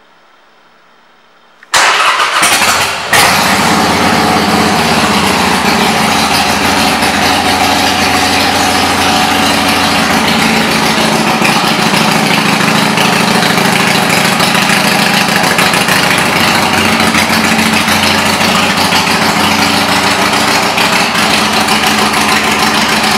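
2014 Harley-Davidson Iron 883's air-cooled V-twin, fitted with Vance & Hines pipes, starting up abruptly about two seconds in, dipping briefly a second later, then idling loud and steady.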